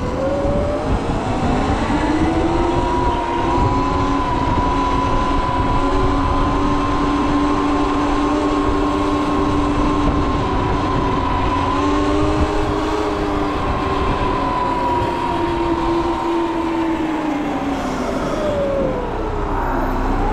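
Whine of an electric vehicle's motor, rising in pitch over the first couple of seconds as it speeds up, holding steady at speed, then falling near the end as it slows. A low rumble runs underneath.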